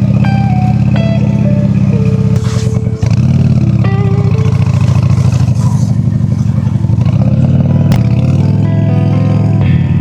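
Honda Shadow V-twin cruiser engine running under way with a deep pulsing note. The note breaks off briefly about three seconds in, then rises again as the bike pulls. A melody of plucked notes plays over it.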